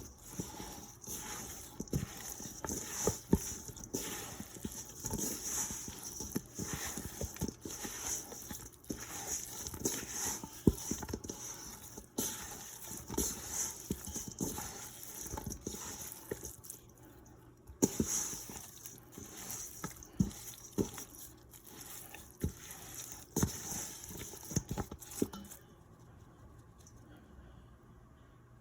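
Irregular soft taps and pats as raw shrimp and chicken pieces are tossed and pressed into a seasoned flour and cornstarch dredge in a bowl. It dies down near the end.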